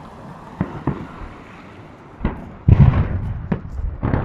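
Fireworks display: aerial shells bursting overhead in a string of sharp bangs at irregular intervals, the loudest and densest cluster about three seconds in.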